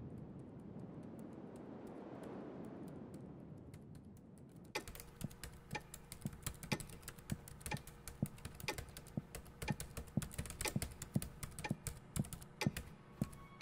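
Fast, irregular typing on a computer keyboard, starting about five seconds in after a soft wind-like hiss fades away.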